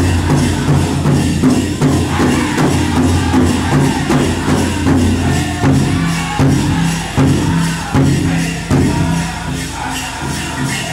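Powwow drum group singing over a steady, even drumbeat, with a jingling of dancers' bells.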